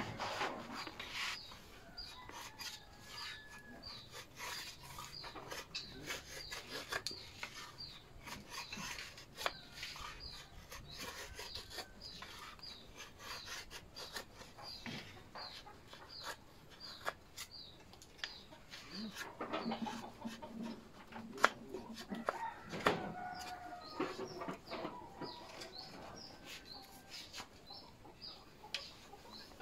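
A small knife scraping and shaving a wooden mandau (Dayak sword) replica in short, irregular strokes. A high chirp repeats steadily in the background, and chickens cluck a little past the middle.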